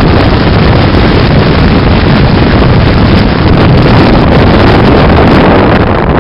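Loud, steady rush of wind buffeting the microphone over the rumble of a moving vehicle.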